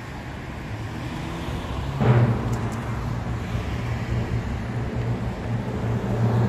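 Road traffic: a motor vehicle's engine and tyre noise, growing and then rising sharply about two seconds in into a steady low hum.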